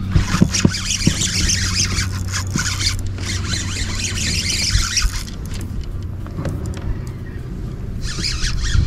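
Spinning fishing reel buzzing as line runs through it, in two long stretches of a couple of seconds each and a shorter one near the end, over a steady low hum.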